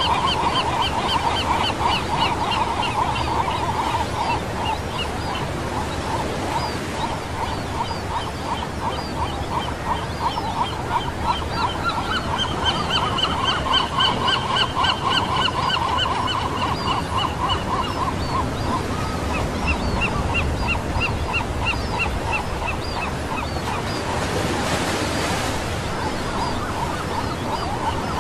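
Small waves washing on a beach under a dense chorus of rapid, evenly repeated chirping calls at several steady pitches. A brief louder rush of water comes about 25 seconds in.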